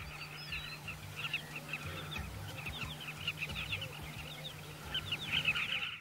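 A flock of carmine bee-eaters calling: many short, overlapping calls, getting busier near the end.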